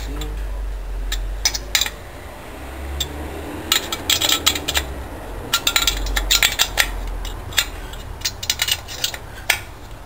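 Metal spanner clinking and scraping on the cylinder-head nuts of a 66cc two-stroke bicycle engine kit as they are worked: many short metallic clicks coming in quick clusters.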